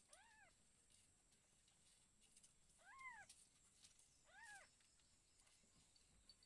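Cat mewing softly three times, each short mew rising and then falling in pitch.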